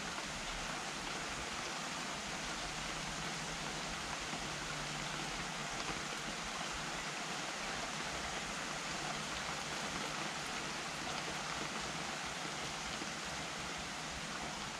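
Steady rain falling, an even hiss with no single drops or other events standing out.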